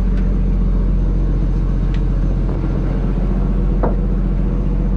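Fishing trawler's diesel engine running with a steady low drone.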